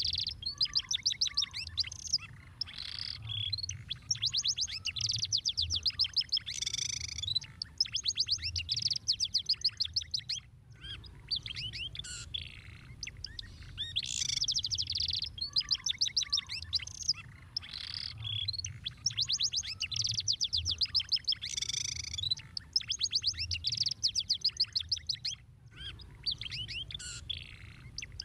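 Domestic canary singing a long, continuous song of fast rolling trills and chirping phrases, with two brief pauses.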